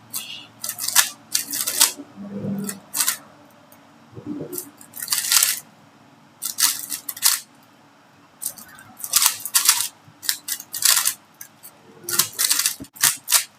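3x3 speedcube being turned fast during a timed solve: bursts of rapid plastic clacks with short pauses between them.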